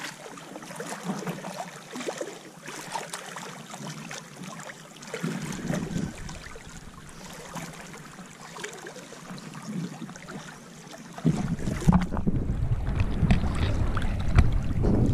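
Seawater sloshing and splashing around legs wading through it, a dense run of small splashes. About eleven seconds in, a low rumble of wind buffeting the microphone grows louder.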